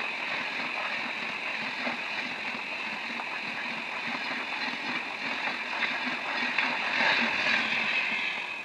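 Express passenger train coaches rushing past at speed: a steady rush of air and wheel-on-rail noise with a repeating low clatter from the wheels.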